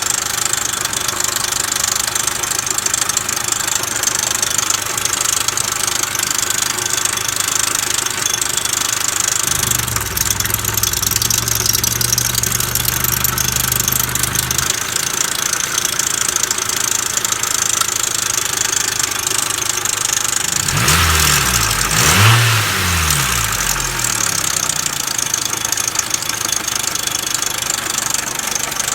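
2000 Nissan Altima's four-cylinder engine running, with the noise the owner puts down to a bad idler pulley. A low steady hum comes in for about five seconds in the middle, and near two-thirds of the way through the engine is briefly revved, its pitch rising and falling.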